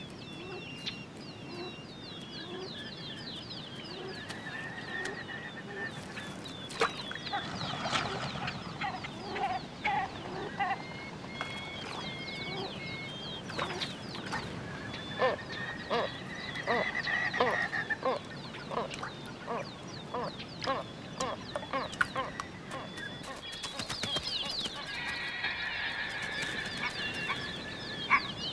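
Dawn chorus of many birds singing and calling at once: rapid high chirps and trills over lower, repeated calls.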